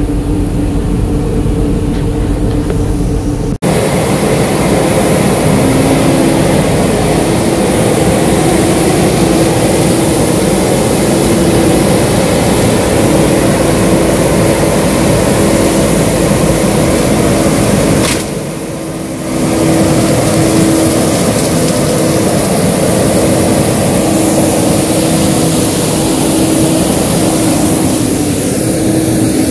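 Johnston mechanical street sweeper running: a loud, steady mechanical din with a constant hum and a high hiss. It is muffled inside the cab at first, then louder and fuller outside by the gutter brush from a few seconds in, and dips for about a second around two-thirds of the way through.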